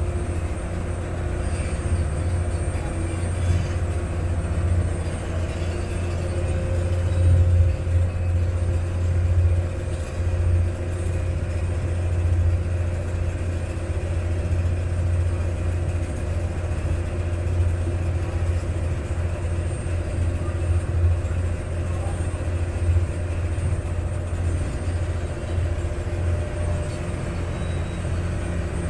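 Vaporetto water bus engine running steadily under way, a low steady drone, with the rush of water and air around the moving boat.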